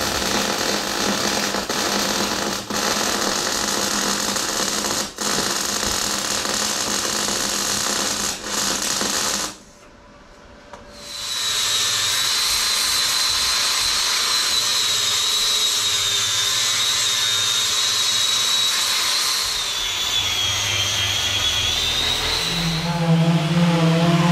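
Angle grinder grinding the steel roof of a narrowboat, a loud, steady grinding that stops briefly about ten seconds in, then runs again with a high, even whine. Near the end a lower, steady hum takes over: an orbital sander with dust extraction.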